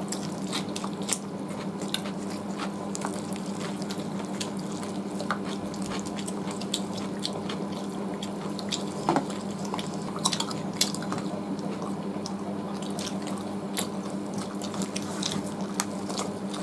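Close-miked eating sounds: wet mouth clicks and smacks while chewing roast chicken and rice eaten by hand, scattered all through, over a steady low hum.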